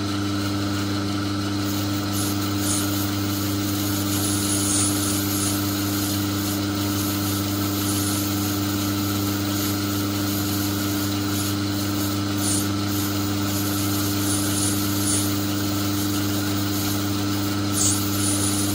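Myford lathe running with a steady hum while its cutting tool takes a very light pass along a spinning brass workpiece, a faint scraping of the cut over the machine's sound.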